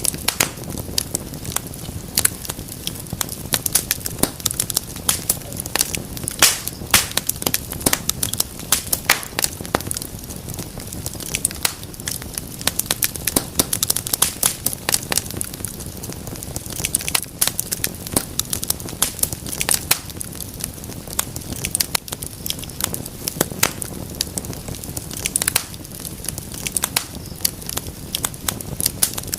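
Wood fire crackling and popping: a steady low rumble of flames with many sharp, irregular snaps, several a second.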